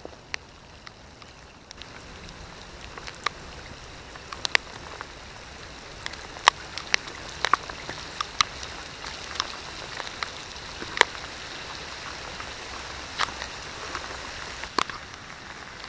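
Rain falling and growing heavier, an even hiss with individual drops striking close to the microphone as sharp, irregular taps.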